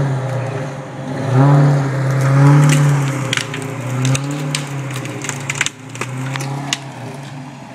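V8 Unimog engine revving up about a second and a half in and holding as the truck crushes through brush, then easing off; branches crack and snap under it many times through the second half.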